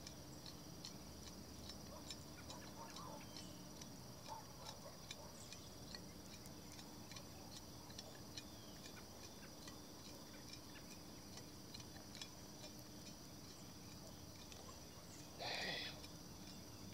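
Faint steady high-pitched insect trill with a light ticking about three times a second, and one short scraping rustle near the end.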